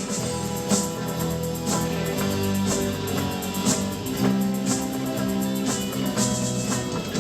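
Instrumental break of a rock song: guitars playing over a drum kit beat, with a crisp drum hit about once a second and no vocals.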